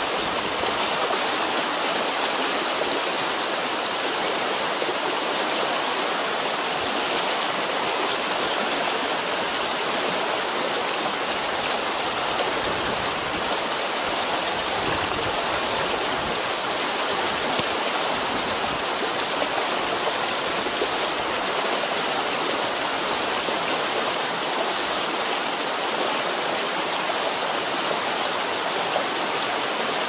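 Mountain river rushing over boulders through shallow rapids: a steady, even rush of water.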